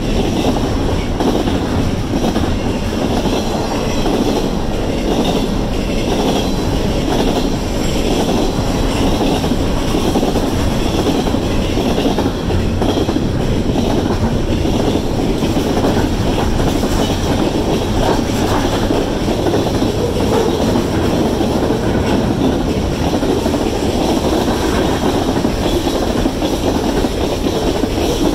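Freight train cars rolling steadily past, first double-stack container well cars and then boxcars: a continuous rumble and clatter of steel wheels on the rails.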